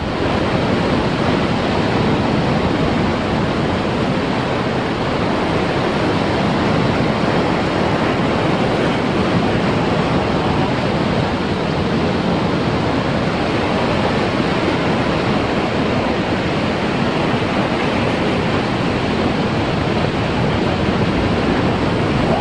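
Heavy surf breaking over shoreline rocks: a steady, loud rush of white water without let-up.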